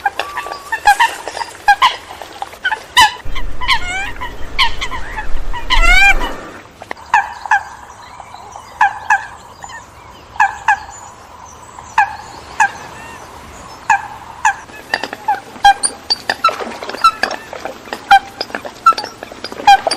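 Coots calling: short, sharp calls repeated every half second or so, with a loud quick run of rising calls about six seconds in. A low rumble lies under the calls for a few seconds near the start.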